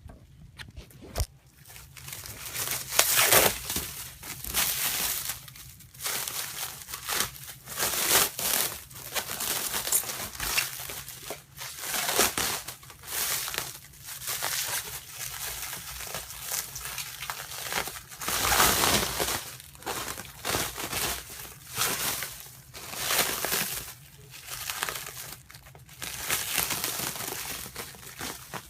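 Packaging crinkling and tearing in irregular bursts as BMX wheels are wrestled out of a tightly packed shipping box.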